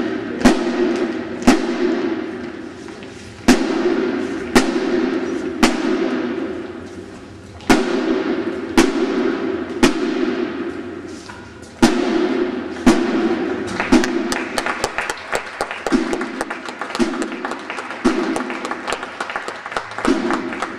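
Marching band of drums and brass playing in a large hall: heavy drum beats about once a second under sustained brass notes, with the side drums adding rapid strokes for the last third.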